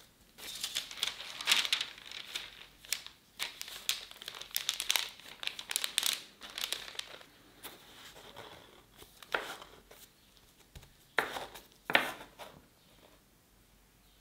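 Parchment paper crinkling and rustling under gloved hands as chocolate shortbread dough is pressed and rolled out on it, dense for the first half. Later come a few separate, louder scrapes and taps, the strongest two about eleven and twelve seconds in, as a plastic scraper squares off the dough's edges.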